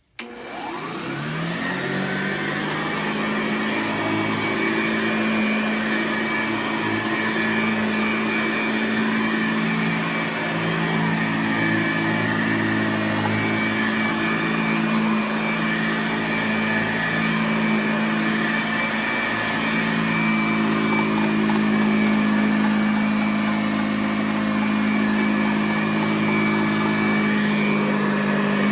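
Hoover Model 29 upright vacuum cleaner switched on: its motor spins up to speed within about a second, then runs steadily with an even whine and rushing air.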